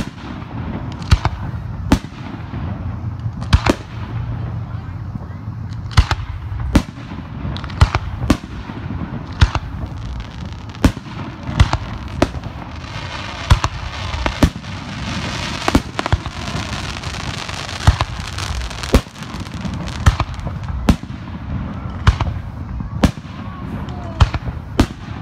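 Fireworks display at close range: a rapid series of sharp bangs from shells launching and bursting, about one or two a second, with a denser stretch of high hissing around the middle.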